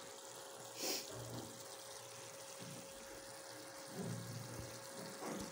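Spiced onion masala frying quietly in an aluminium pot, with a wooden spoon stirring now and then. A faint steady hum runs underneath, and there is a brief hiss about a second in.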